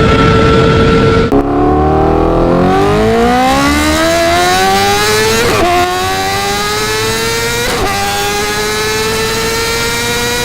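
Sport motorcycle engine at high revs. About a second in the pitch drops sharply, then the engine pulls up steadily through the gears with quick upshifts about five and a half and eight seconds in.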